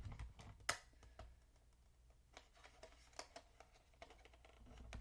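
Faint, irregular plastic clicks and taps as accent keycaps are handled and fitted onto an inexpensive mechanical keyboard.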